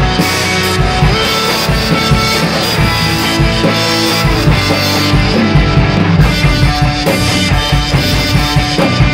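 Acoustic drum kit played hard along with a rock backing track: fast, dense strikes on the toms and snare with cymbal crashes and bass drum.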